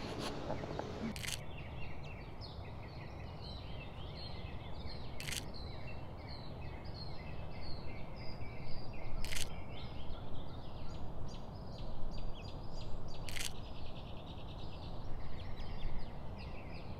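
Birds chirping and singing in many short, repeated notes over a steady low background rush, with a sharp click about every four seconds.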